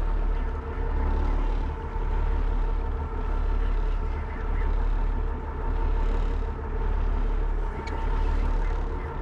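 Boat engine running steadily with a deep rumble and a steady hum, its level swelling and dipping about once a second.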